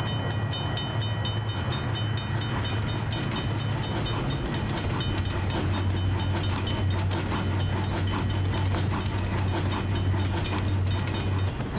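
Sound effect of a train passing: a steady low rumble with a fast, even clicking and pulsed high ringing, about four strokes a second. The rumble cuts off just before the end.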